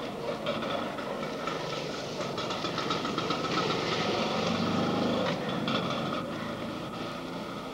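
A motor vehicle's engine passing by, rising to a peak about four to five seconds in and then fading.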